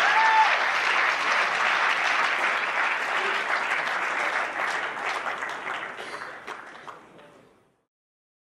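Audience applauding, with a short whoop right at the start; the applause fades out and stops about seven and a half seconds in.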